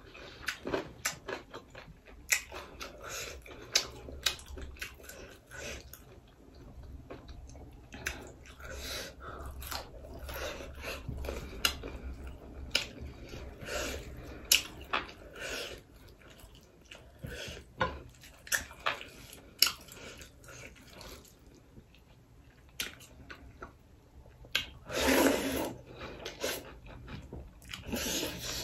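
Close-up mouth sounds of a person eating rice, leafy greens and duck fry by hand: chewing with many sharp wet clicks and smacks, and one longer, louder noisy sound near the end.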